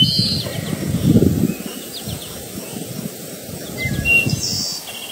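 Small birds chirping now and then with short, quick calls, over a low, uneven rumble that is loudest in the first second and a half.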